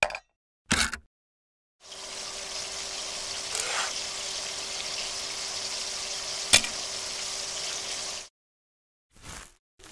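Food sizzling in a hot frying pan: a steady sizzle that starts about two seconds in and cuts off after about six seconds, with one sharp click partway through. Two short sounds come just before the sizzle starts.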